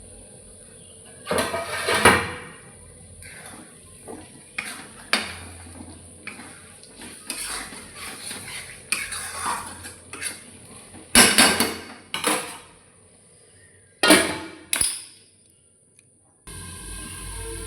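Metal cooking utensils clattering and knocking against pots and dishes in irregular strokes, loudest about two seconds in and again around eleven and fourteen seconds. Near the end a steady hiss begins.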